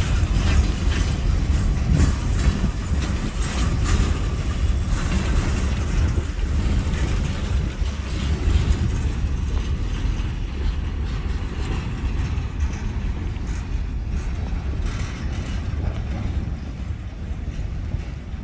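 CSX freight train's boxcars rolling along the track with a steady low rumble and wheel clatter. The sound slowly fades as the train moves away.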